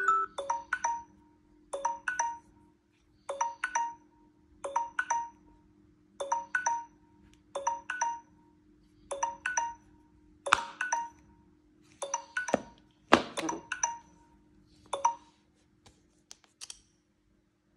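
Mobile device alarm tone through the device's speaker: a short two-note chime figure repeated about every one and a half seconds over a low steady hum. A couple of sharper knocks come about two-thirds of the way through, and the chiming stops a few seconds before the end.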